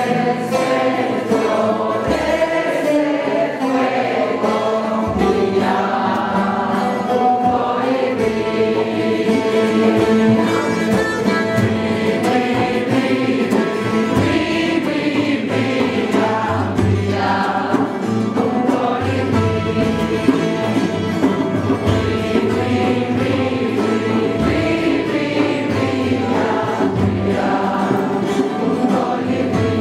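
Music: a group of voices singing together in long, slowly gliding lines.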